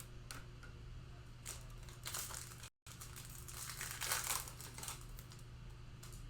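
Trading card pack wrapper crinkling and tearing as a pack is opened, in several short rustling bursts.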